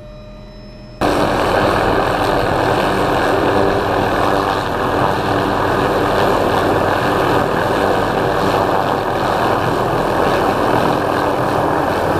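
MD500E helicopter's turbine and rotor running steadily on the ground. A quieter steady whine jumps abruptly to a loud, steady rush about a second in.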